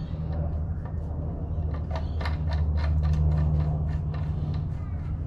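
A steady low mechanical hum, louder through the middle, with a quick run of sharp clicks, about five a second, starting about two seconds in.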